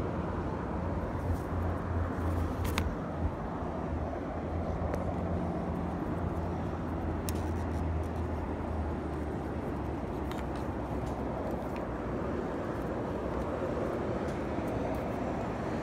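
Steady rumble of road traffic with a low hum that is strongest in the first half, with a few light, sharp clicks.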